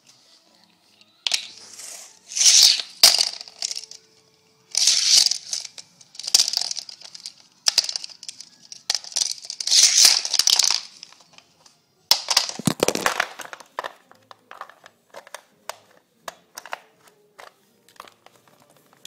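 Rustling and rubbing handling noise right at the phone's microphone, in irregular bursts, followed about twelve seconds in by a run of light plastic clicks and taps.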